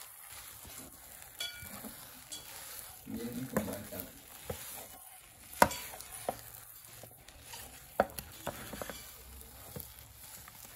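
A spatula stirring and folding thick, sticky dough in a nonstick frying pan: soft scraping and squishing, with a few sharp knocks of the spatula against the pan, the loudest about halfway through and again a little later.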